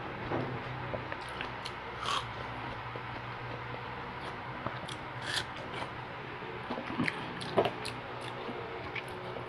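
Close-miked biting and chewing of yellow watermelon: scattered short, wet bites and mouth clicks over a steady low hum.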